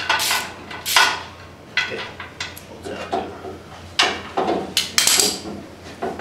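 Metal-on-metal clanks and knocks from wrenches and the Warn 9.5XP winch against its steel winch bumper as the winch is unbolted and worked loose. About half a dozen irregular strikes, a second or so apart.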